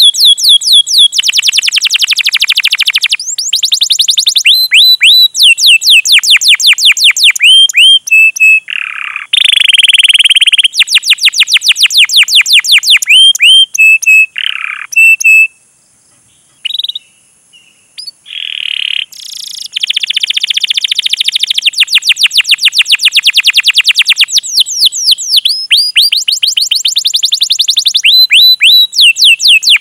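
Domestic canary singing loudly: long runs of rapid, sharply falling "cuit-cuit" chirps and dense rolled trills. About halfway through the song breaks off for a few seconds, with only a few short notes, then resumes.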